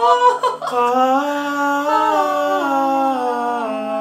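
Unaccompanied singing voice holding long 'aah' notes, the pitch stepping up and down a few times, with no instruments.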